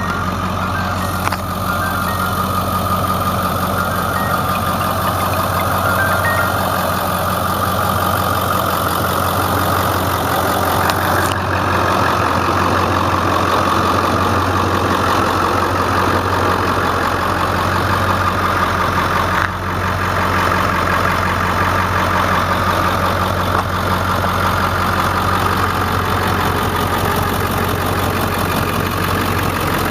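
2002 Ford F350's 7.3 litre V8 turbo diesel idling steadily.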